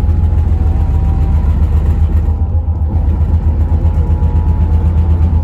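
Daewoo FX116 coach on the move: a loud, steady low engine and road drone with a faint steady whine above it. The higher hiss eases about two seconds in.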